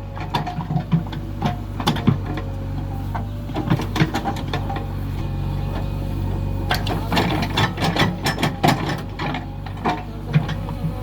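JCB 3DX backhoe loader's diesel engine running steadily under load, with repeated metallic clanks and knocks from the backhoe bucket and arm as it digs soil; the clanking eases for a moment about halfway through, then picks up again.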